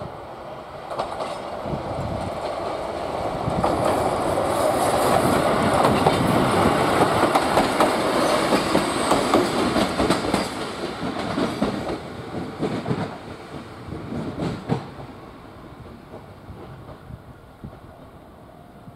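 Tsugaru-21 diesel railcar of the Tsugaru Railway passing close by: engine and wheels clacking over the rail joints. The sound swells for several seconds in the first half, then fades as the car pulls away, with a few last clacks.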